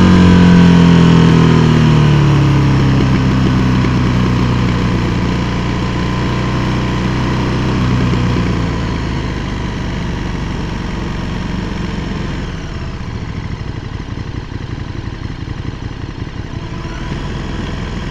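KTM 1290 Super Duke R's V-twin engine coming off the throttle, its note falling in pitch over the first couple of seconds and slowly getting quieter as the bike slows. From about twelve seconds in it settles into a low, uneven rumble at low road speed.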